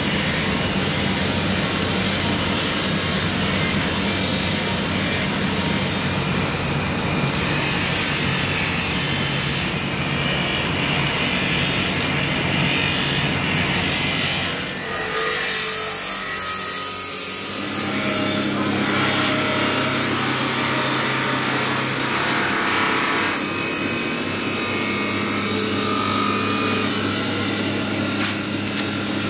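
Belt-driven grinding wheel running, a carbon-steel kukri blade held against it: rough grinding of steel over a steady motor hum. The sound dips briefly about halfway through and the hum comes back at a different pitch.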